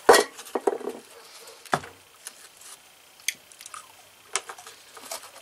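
Metal engine parts and hand tools being handled on a workbench: scattered clinks and light knocks, with one sharper knock about 1.7 seconds in.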